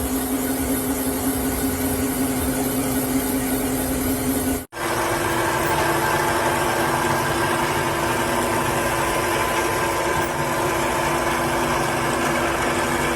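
Machinery running steadily with a constant hum. About a third of the way in it cuts off abruptly and resumes at a different, higher pitch.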